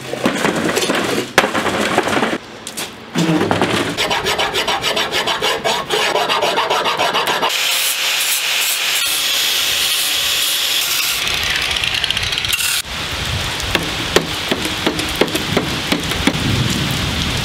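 Hand rasp scraping a laminated zebrawood axe handle in quick back-and-forth strokes. About halfway through, an angle grinder with a sanding disc whines steadily for a few seconds while grinding the handle's shape. Hand rasping then resumes, with rain falling.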